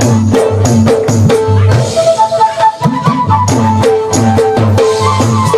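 Live band playing through the stage PA during a sound check: drums and percussion beat out a steady rhythm with deep thuds under a melody of held notes.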